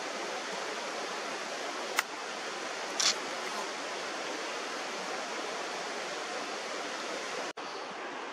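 Steady rush of a creek's running water. A sharp click about two seconds in and a short hiss a second later. The sound breaks off for an instant near the end.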